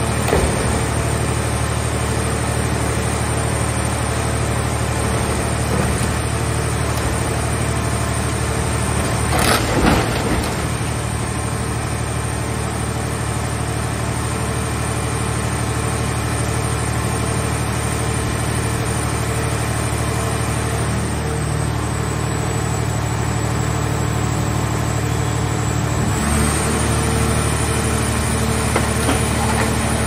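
Hydraulic car-shell baler running steadily under load as it presses a scrapped car body, with a loud crunch of the car shell giving way about ten seconds in. A little before the end the machine's tone steps up as the next press stroke starts.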